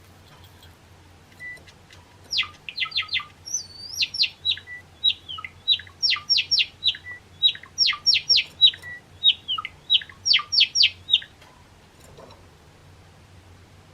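Java sparrow singing: a long run of short, quickly falling notes, mostly in fast groups of three or four, starting about a second and a half in and stopping a couple of seconds before the end.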